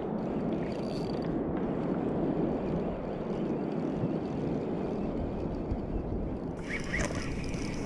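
Steady wind noise on the microphone over the wash of water around a sea kayak, with a few light clicks near the end.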